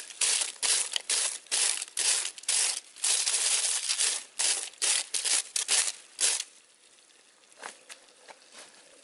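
A green leafy branch sweeping ash and dirt off a crinkly aluminium-foil lid, in quick repeated hissing strokes about two or three a second with one longer sweep in the middle. The brushing stops about six and a half seconds in.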